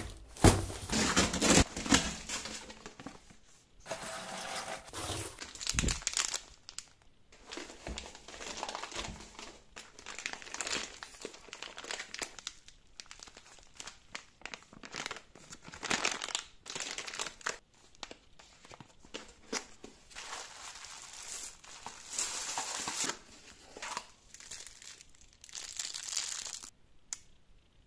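Hands unpacking a cardboard parcel: cardboard flaps and paper-shred filler rustle, and the plastic film wrapped around a block of cylinder neodymium magnets crinkles. There are irregular taps and knocks throughout, the loudest in the first couple of seconds.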